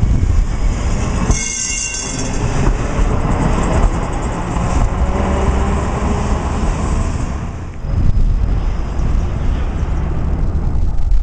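Street trams running on rails: a steady rumble of steel wheels on the track, with a brief high wheel squeal about a second and a half in.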